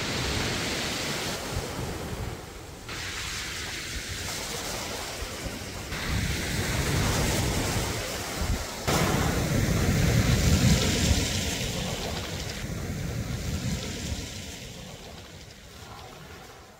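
Sea waves breaking and washing over a pebble beach, with wind buffeting the microphone. The surf sound changes abruptly several times and fades out near the end.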